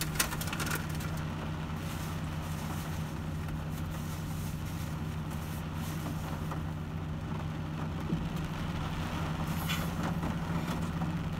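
Steady low hum of a car's engine idling, heard from inside the cabin.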